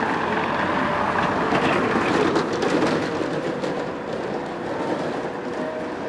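A car driving past on a brick-paved street, its tyres rattling over the pavers; the noise swells for about two seconds and then fades away.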